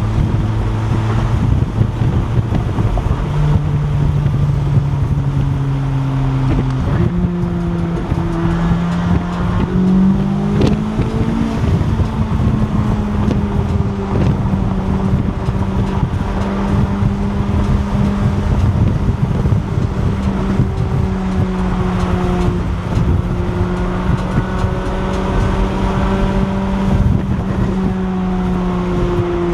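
Chevrolet C8 Corvette Z06's 5.5-litre flat-plane-crank V8 running on the move: the engine note steps up in pitch a few times in the first ten seconds or so, then holds steady. Wind and road noise on the microphone throughout.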